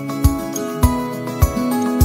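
Background instrumental music: sustained notes over a steady beat.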